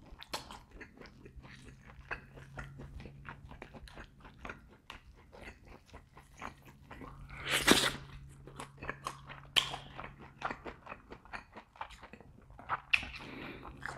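Close-miked chewing of rotisserie chicken with the mouth closed: a steady run of small wet clicks and smacks, with one louder burst about eight seconds in. A faint low hum runs underneath.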